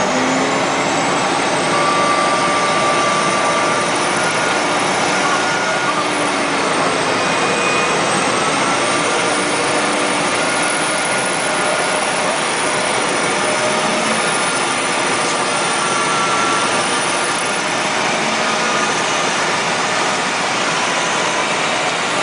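Heavy diesel engines of wheel loaders running hard under load in a steady, loud drone, with a thin high whine that rises and falls.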